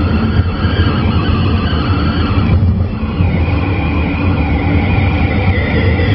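Steady engine and road rumble inside a moving car's cabin, under the hiss of a CB radio receiving in upper side-band on an open channel. The hiss changes character about two and a half seconds in.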